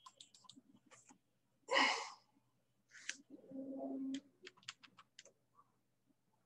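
A person sighs heavily in frustration about two seconds in, then gives a short low hum, amid faint scattered taps and clicks of a pen-tablet stylus.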